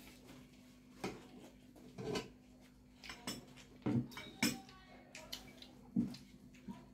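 Clinks and taps of steel plates and a spoon while eating by hand, about half a dozen sharp knocks with a short metallic ring, the loudest about four seconds in.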